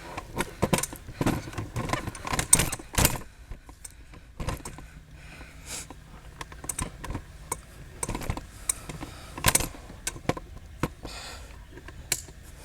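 Irregular clicking, tapping and rattling of hands working on the car's front door: plastic trim, clips and wiring being handled. There are loose sharp clicks throughout, with a few louder knocks.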